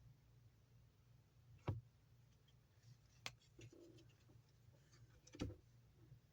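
Near silence with three soft, brief taps spread through it: Yu-Gi-Oh trading cards being handled and set down.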